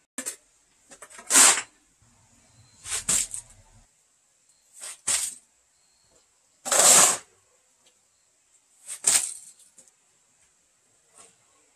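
Wet concrete mix being poured into a dug trench in separate loads: six short scraping, sliding rushes, the loudest and longest about seven seconds in, with a few faint scrapes near the end.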